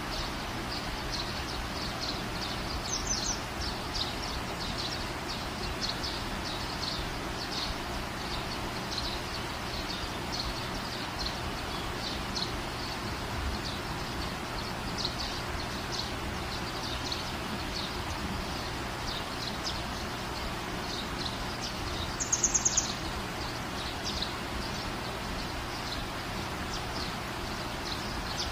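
Small birds chirping over and over against a steady background hiss, with a quick run of higher, sharper chirps about 22 seconds in that is the loudest moment.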